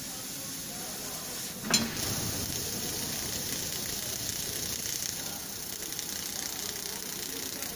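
500 W fiber laser cutting head working 5.5 mm black steel plate: a steady sizzling hiss of the cut and its assist gas, with one sharp pop a little under two seconds in, after which the hiss is a little louder.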